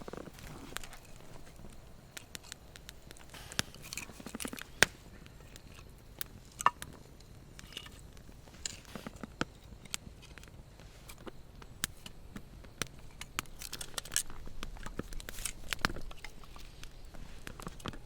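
Wood campfire crackling, with irregular snaps and pops; two pops stand out loudest, about five and seven seconds in.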